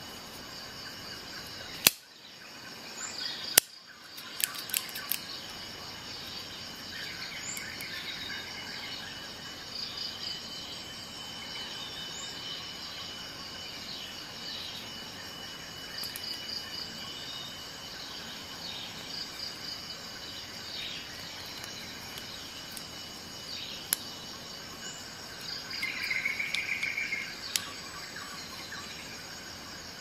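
Leatherman Raptor Response folding shears clicking sharply as they are snapped open and shut one-handed, a few loud clicks in a cluster early on and a couple more later. Crickets chirp steadily behind them.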